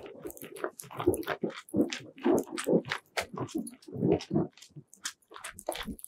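Snow crunching in quick, irregular strokes as gloved hands dig and pack snow at the base of an ice-fishing shelter's skirt.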